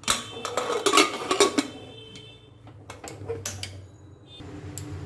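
Lid of an aluminium Prestige pressure cooker being fitted and closed: metal clattering and scraping, with a brief ringing about two seconds in and a few more clicks a second later.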